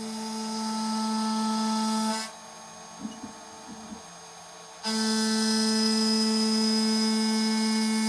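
Shariff DMC2 desktop CNC mill cutting aluminium plate with an end mill: a steady pitched whine with a hiss above it. It cuts off about two seconds in, a few faint ticks follow, and it starts again abruptly about five seconds in for another pass.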